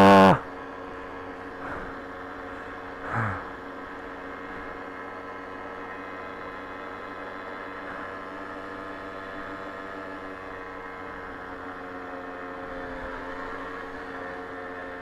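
Babetta 210 moped's single-cylinder two-stroke engine running at a steady cruising speed, its drone holding one pitch throughout. A short loud pitched sound comes right at the start, and a fainter falling one about three seconds in.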